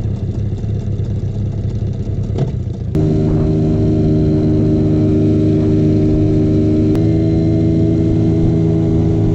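Mariner outboard motor running steadily under way. A constant drone that gets louder and fuller about three seconds in.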